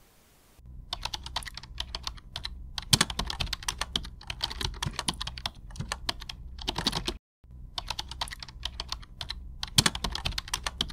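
Ballpoint pen writing on paper, sped up, so the strokes run together into a rapid patter of clicks and scratches much like typing. It breaks off briefly about seven seconds in.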